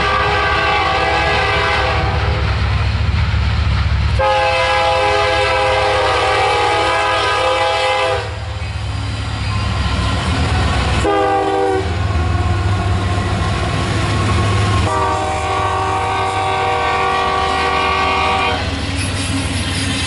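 Union Pacific diesel locomotives at the head of a double-stack freight train sounding their air horn as they pass close by: the end of one long blast, a second long blast, a short one, and a final long one, the grade-crossing pattern. A low engine and train rumble runs under the horn throughout.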